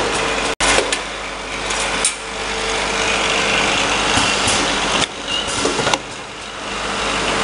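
An automatic bottle filling and capping line running: steady machine noise with a motor hum and scattered clicks and clatters. The sound drops out for an instant about half a second in and shifts abruptly in level a few times.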